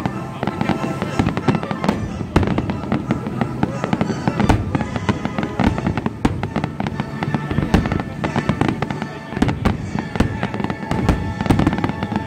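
Aerial fireworks shells bursting in a rapid, continuous barrage of sharp bangs, over the display's accompanying music.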